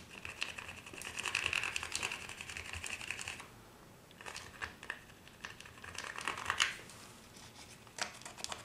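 Plastic credit card scraping excess wax off the filled fret-slot ends along the edge of a guitar neck: a run of rasping scrapes for the first three seconds or so, then shorter scrapes and light clicks.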